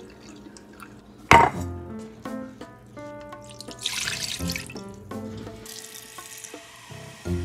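Background music with a tune throughout. About four seconds in, liquid is poured splashing into a wok, then a kitchen tap runs briefly into a glass measuring cup. A single sharp loud hit comes about a second in.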